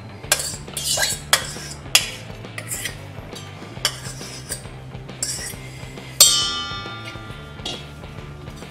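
Steel spoon clinking and scraping against stainless-steel vessels as set, frozen ice cream base is scooped out of one container into a large bowl, with several sharp clinks in the first few seconds. About six seconds in, one loud clang of steel on steel rings on and fades.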